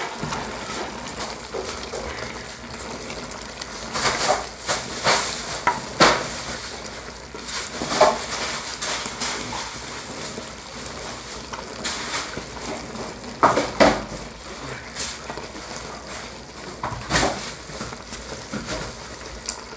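A wooden spoon stirs pecans in a clay pot, scraping and knocking against the pot's sides at irregular moments, over a steady sizzle of the sugar syrup cooking for candied pecans.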